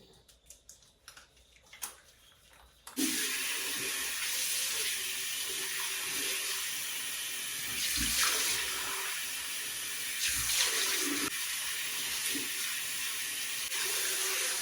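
Water running steadily from a tap, turned on suddenly about three seconds in and shut off at the end, with two brief louder moments around the middle.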